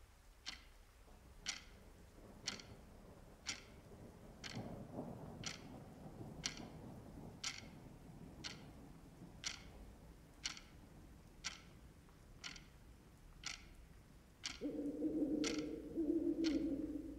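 A clock ticking steadily, about two ticks a second. Near the end an owl gives long, low hoots lasting a couple of seconds, the loudest sound here.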